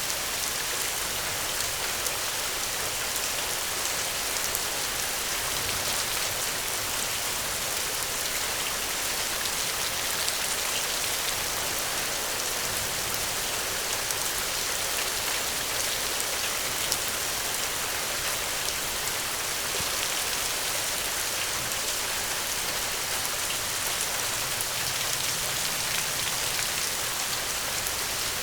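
Steady rain: a dense, even hiss with scattered small ticks of drops hitting a surface.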